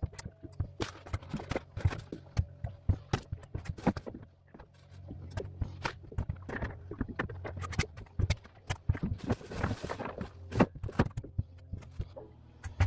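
Freshly caught fish being dropped and laid out on a fibreglass boat deck: a long, irregular run of knocks and slaps, with a steady low hum underneath.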